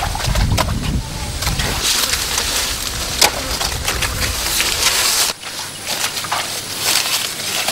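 A long blade hacking into the thick stalks of elephant-ear plants (Typhonodorum lindleyanum), with several sharp chops, the loudest about three seconds in.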